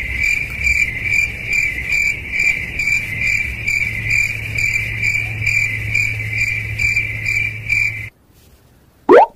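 Cricket chirping in a steady pulsing trill of about four pulses a second, which cuts off abruptly about eight seconds in. Near the end comes a short, loud rising swoosh.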